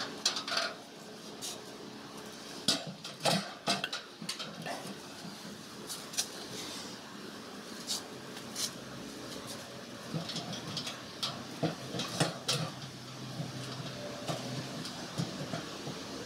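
Empty sheet-metal drums clanking and knocking as they are handled and stacked, in a dozen or so scattered sharp knocks over steady background noise.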